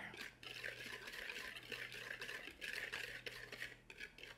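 Wire whisk stirring dry almond-flour mix in a mixing bowl: a faint, continuous scratchy swishing made of many quick strokes.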